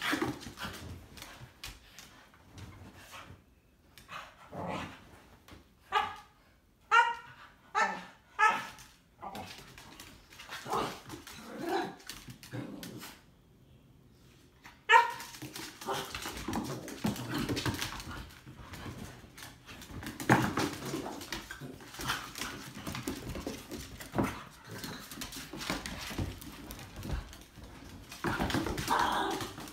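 Two dogs play-fighting, a boxer–Labrador mix puppy and a cairn terrier–schnauzer mix: a run of short barks about six to nine seconds in, one sharp bark about fifteen seconds in, then scuffling as they tussle and run on a wooden floor.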